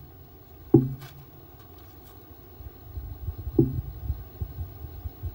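A man gives two short voiced grunts of effort while doing dips on parallel bars, one about a second in and one past three and a half seconds. Low, uneven rumbling fills the second half.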